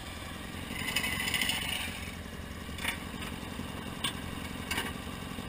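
Garden tractor engine running steadily, with a scraping noise that swells for about a second near the start and a few sharp clicks or knocks later on.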